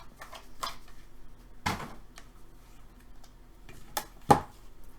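Trading cards and plastic card holders being handled on a table: a few scattered light clicks and scrapes, the sharpest near the end.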